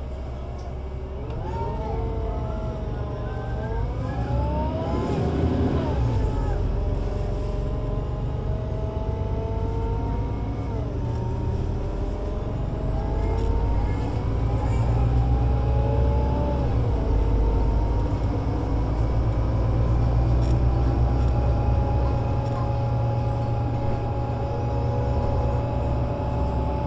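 Solaris Urbino 18 IV articulated bus with a DAF diesel engine and Voith Diwa 6 automatic gearbox pulling away. The engine pitch climbs and drops several times as the gearbox shifts up, then the bus settles into a steady run in the second half.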